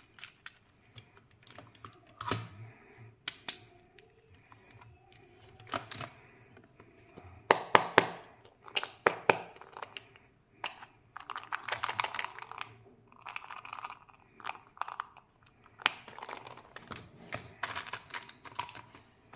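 Candy packaging and plastic toy capsules handled at close range: irregular sharp clicks and taps mixed with crinkling and tearing of wrappers, some louder crackly bursts about eight and twelve seconds in.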